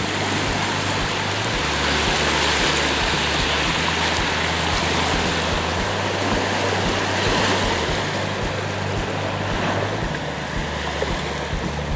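Sea waves breaking and washing up a sandy beach: a continuous rushing surf noise.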